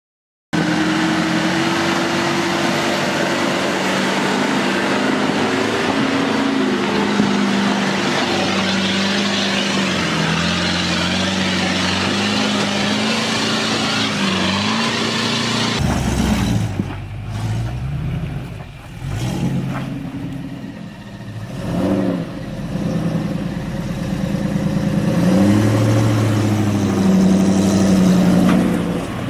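Land Rover Discovery 1 engines working off road under load, their pitch drifting up and down with the throttle. About halfway through the sound changes abruptly to another engine revving in short rising and falling surges.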